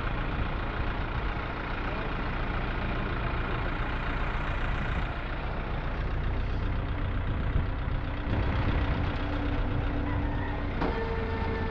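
Heavy truck diesel engine idling steadily. A steady high tone with overtones starts near the end.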